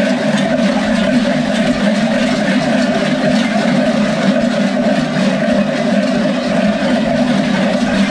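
Many large goat bells strapped around the waists of Skyros carnival 'Geros' dancers, clanging together in a loud, continuous din that does not let up.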